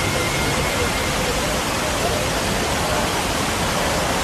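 Steady rushing of artificial waterfalls pouring over rocks into a lagoon, with faint voices of passers-by.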